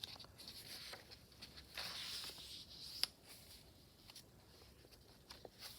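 Paper pages of a thick handmade journal being handled and turned: soft rustling, loudest about two seconds in, with a sharp click about three seconds in and a few small ticks.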